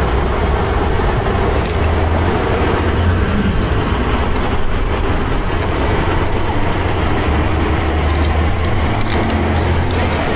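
Steady vehicle engine rumble: a continuous low hum under a dense noise, unchanging throughout.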